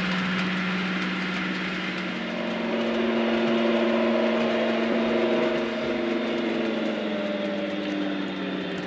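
Sound-decoder diesel engine note of a DCC model locomotive playing through its onboard speaker: a steady low engine drone, joined about two seconds in by a higher set of engine notes that hold and then ease off near the end.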